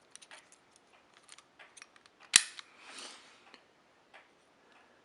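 Small metal clicks of a hook pick and tension bar working the pins of a pin-tumbler deadbolt cylinder, with one loud sharp click about halfway through followed by a short rasp.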